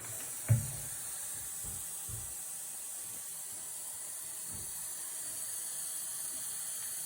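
Tap water running steadily into a pot, a smooth hiss, with a single knock about half a second in.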